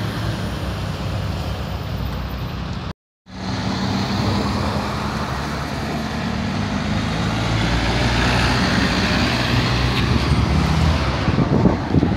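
Street traffic on a city avenue: cars and trucks passing, over a steady engine hum. The sound cuts out for a moment about three seconds in.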